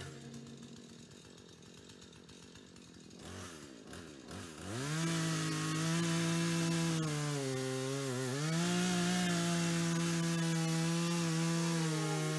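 Gas chainsaw pull-started about three seconds in, catching near five seconds, then running at high speed with a steady pitch that dips once about eight seconds in and comes back up.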